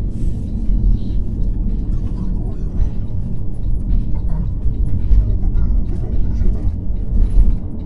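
Car driving at road speed: steady low road and engine rumble.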